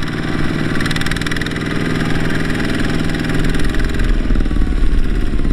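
Two-wheel walking tractor's single-cylinder diesel engine running steadily with a fast, even pulsing beat, growing somewhat louder toward the end.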